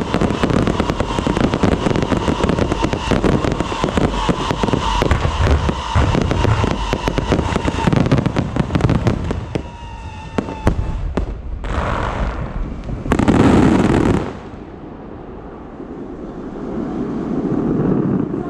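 Fireworks going off: a dense, rapid stream of crackles and bangs for about nine seconds. Then it thins to scattered cracks and a couple of short, loud bursts before dying down to a dull hiss.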